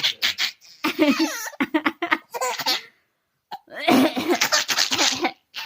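A baby laughing in short, high-pitched bursts, set off by a woman's fake coughs. The laughter breaks off for about a second around three seconds in, then comes back in another run.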